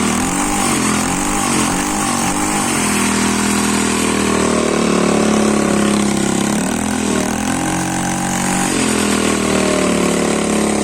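Scooter engine of a home-built mini chopper running with its exhaust baffle flap open, so it sounds through the straight-through pipe. Its pitch rises and falls over the first few seconds, steadies, then dips and rises again past the middle.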